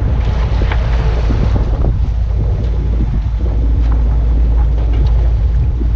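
Wind buffeting the microphone in a heavy, steady rumble, with waves splashing and rushing along a sailboat's hull in choppy seas.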